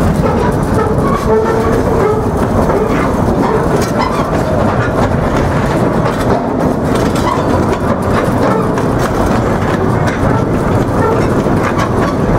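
Cedar Point & Lake Erie Railroad steam train running along the track: a steady rumble with light clicking.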